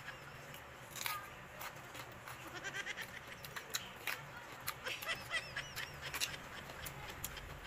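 Crunching bites and wet chewing of raw cucumber close to the microphone, a series of short sharp clicks. An animal calls a few times in the background.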